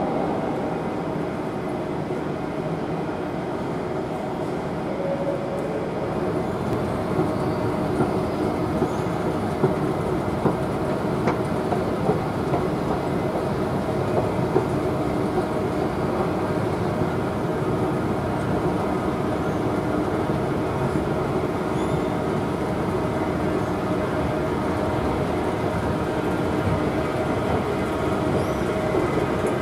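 Escalator running, a steady mechanical drone with a few sharp clacks from the moving steps, heard while riding it.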